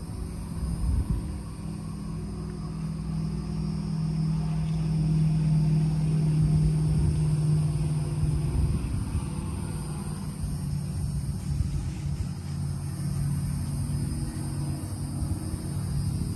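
A 2006 BMW 325Ci's inline-six engine idling: a steady low hum with rumble beneath it, a little louder in the middle.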